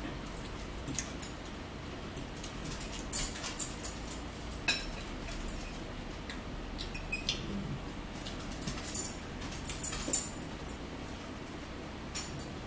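Eating sounds: a fork clinking and scraping in a bowl of salad, with chewing and small mouth clicks. There are several sharp clinks, the loudest about three seconds in and again around ten seconds.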